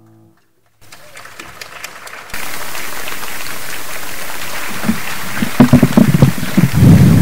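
The last piano chord of the piece dies away, and after a short hush audience applause swells up and holds steady. A voice comes through over it in the last couple of seconds.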